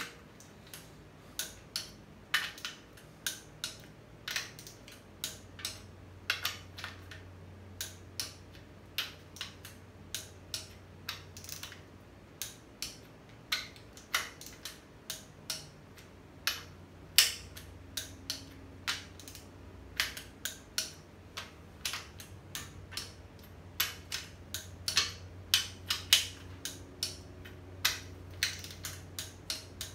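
Ratchet torque wrench clicking in short, irregular runs as nuts on a VW engine's case studs are tightened down in a crisscross pattern.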